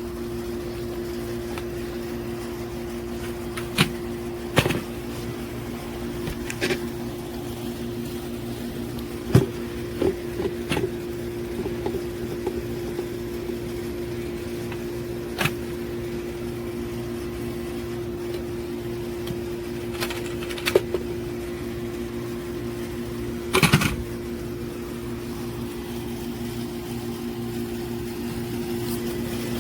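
Cordless pool vacuum's small electric motor running with a steady, even hum, with scattered short clicks and knocks as the head is worked over the pool surface.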